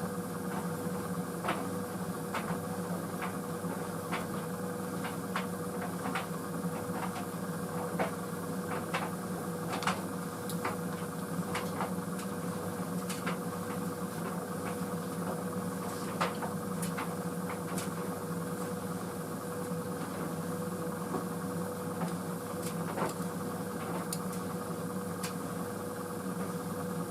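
White Knight CL43 tumble dryer running on a high-heat cycle: a steady motor and fan hum with a constant tone, and irregular light clicks as the load tumbles in the drum.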